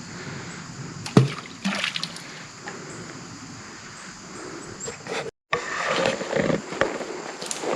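Footsteps knocking and scraping on loose slate creek-bed rocks over creek water trickling, with a sharp knock a little over a second in and another just after. The sound drops out completely for a moment a little past halfway, then the steps resume busier.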